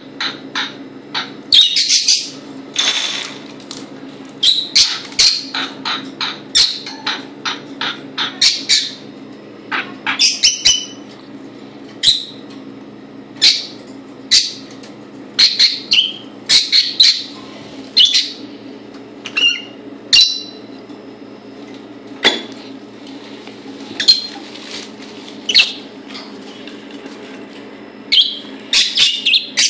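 Parrot squawking and chirping in short, sharp calls that come in quick runs with brief pauses, over a steady low hum.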